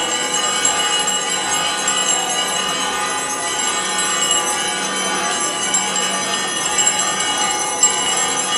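Church bells ringing continuously, many tones overlapping and sustained without a break.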